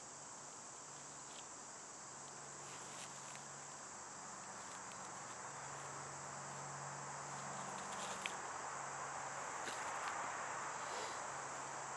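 Steady high-pitched chorus of insects, with faint rustling and a few light clicks as paracord is wrapped around a wooden bucksaw frame.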